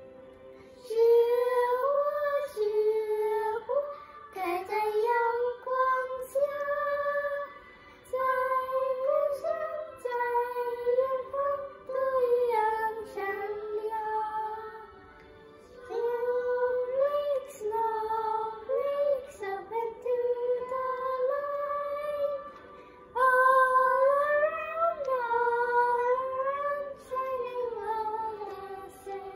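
Two boys singing a melody together, in phrases of held notes with short pauses between them.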